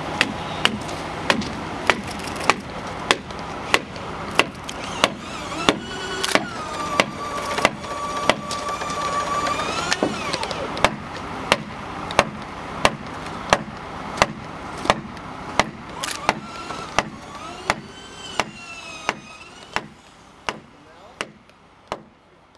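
A mallet hammering steadily on bridge timberwork, driving a fastener flush, about one and a half blows a second and fading toward the end. A machine whine rises, holds and falls in the middle, and briefly again later.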